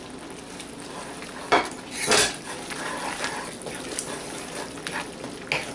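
Spatula stirring a thick masala in a wok, scraping and knocking against the pan, with two loud knocks about one and a half and two seconds in and smaller clicks between, over a low frying sizzle.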